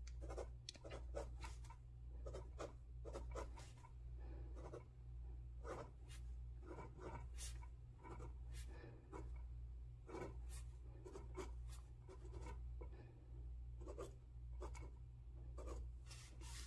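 Pilot Juice gel pen writing numbers on notebook paper: the tip scratches and taps in short, irregular strokes. A steady low hum runs underneath.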